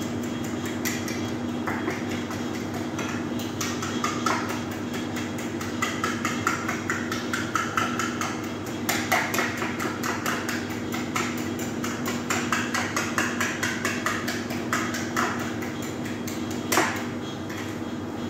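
Rapid, repeated clicking and knocking of kitchen utensils at a work counter, some strokes ringing briefly, over a steady low hum; one sharper knock near the end.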